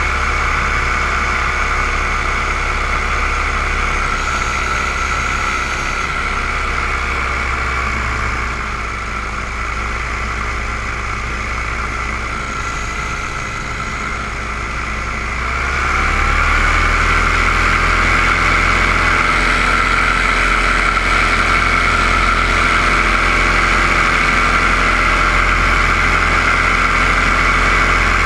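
Camera drone's electric motors and propellers whining steadily. The pitch sinks about eight seconds in, then rises and grows louder around sixteen seconds in as the throttle opens up again.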